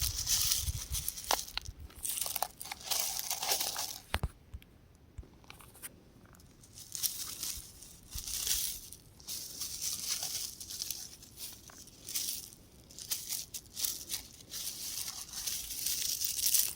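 Rock crumbling apart, with gritty crackling and crunching in irregular bursts and scattered sharp clicks, broken by a quieter stretch of about two seconds partway through.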